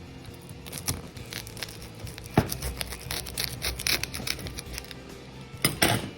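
Pizza cutter rolling through a baked frozen pizza's crispy crust, giving irregular crunching, scraping and sharp clicks, with a loud click about two seconds in and a dense burst near the end. Background music plays under it.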